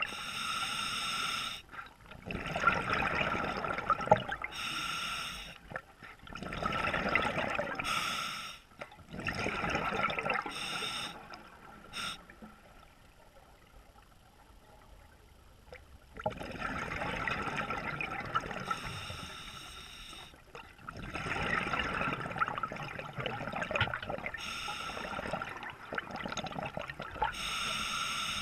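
Scuba diver breathing through a regulator underwater: rushing breaths and bursts of exhaled bubbles every couple of seconds, with a lull of about four seconds midway.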